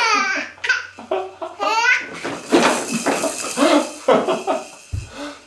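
Six-month-old baby laughing in short repeated bursts, with a high squealing laugh about two seconds in, and an adult laughing along.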